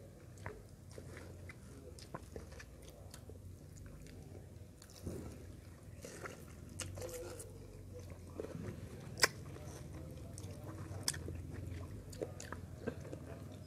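Close-up mouth sounds of a person eating ripe mango: wet biting and chewing of the soft flesh, with scattered smacks and clicks, one sharp smack about two thirds of the way through being the loudest.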